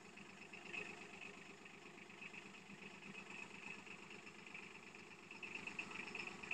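Yanmar KE50 compact tractor's engine running faintly at low speed as it creeps forward, a little louder near the end.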